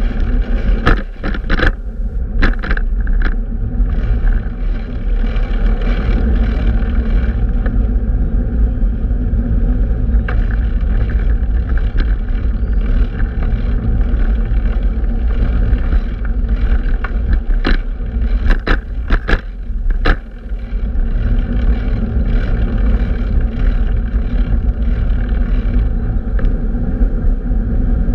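Steady low rumble of wind and road noise on the microphone of a camera travelling on a fixed-gear bicycle through city traffic. It is broken by a few sharp knocks one to three seconds in and again in a cluster about two-thirds of the way through.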